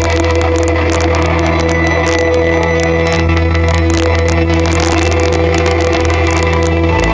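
Loud music with a held low bass note and sustained chords; the bass changes note near the end.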